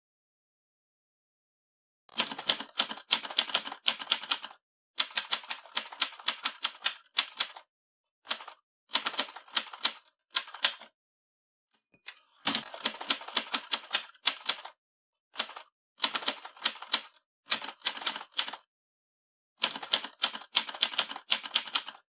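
Typewriter sound effect: keys clacking in quick runs of keystrokes with short pauses between runs, starting about two seconds in.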